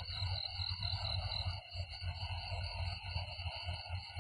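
Crickets and other insects chirping in a steady, rapidly pulsing high-pitched chorus, over a low uneven rumble.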